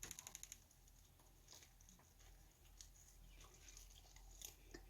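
Faint chewing of a crispy fried chicken drumstick: a quick run of small crunchy ticks at the start, then scattered soft crunches and mouth clicks.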